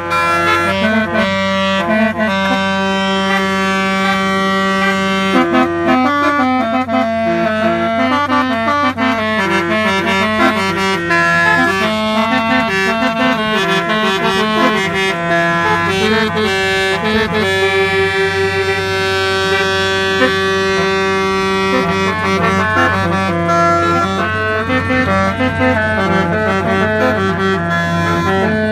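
Musical car horn playing a tune: a melody of held notes that step up and down in pitch, over a steady low hum.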